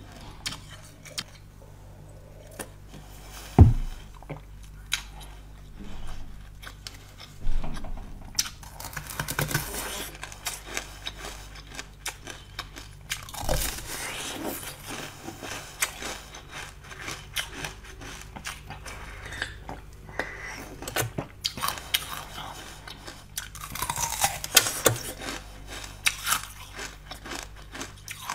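Close-up mouth sounds of eating: sips and small wet clicks from a seed-filled drink, with one loud knock about four seconds in. Then, from about eight seconds in, biting and chewing of bun-shaped jelly, a dense run of crackly, wet chewing noises.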